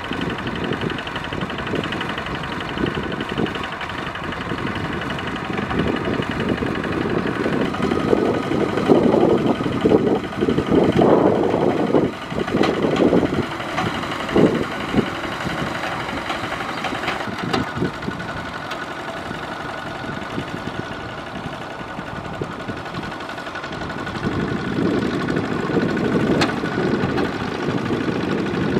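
Single-cylinder diesel engine of a two-wheel walking tractor running steadily as its cage wheels churn through a flooded rice paddy, with louder stretches in the middle and near the end.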